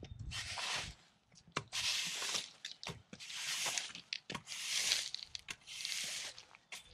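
Push broom with stiff bristles sweeping dirt and grit across interlocking brick pavers, in about six short scraping strokes roughly a second apart.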